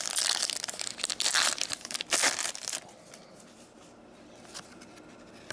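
Wrapper of an Upper Deck hockey card pack being torn open and crinkled by hand for the first few seconds. After that come only a few faint clicks as the cards are handled.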